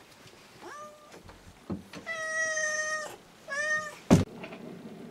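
Three high, drawn-out animal cries, the middle one held steady for about a second, then a single loud thump about four seconds in.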